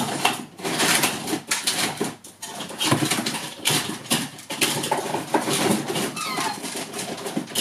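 Rummaging in a cardboard box of toys: irregular rustling and clattering of plastic and cardboard, with a few short squeaks near the end.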